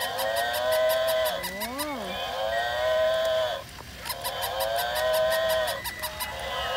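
A mooing sound effect, high-pitched like a toy's: three long moos in a row, with fast, even ticking over them and a short rising-and-falling note about two seconds in.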